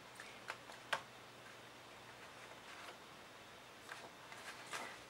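Faint sounds of a hand handling the pages of a large hardcover photo book: a few soft ticks early, a brief paper rustle around the middle as a page is turned, and more soft ticks near the end.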